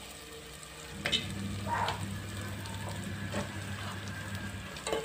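Chopped chicken feet tipped from a plate into a pot of hot frying masala, sizzling, with a few knocks as the pieces land; the sizzle picks up about a second in.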